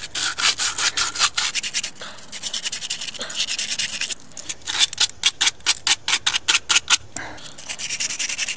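Abrasive cloth scrubbing the inside of a copper union fitting in quick scratchy back-and-forth strokes, cleaning the copper ahead of flux and solder. About halfway through, the strokes turn very regular, about four a second, for a couple of seconds.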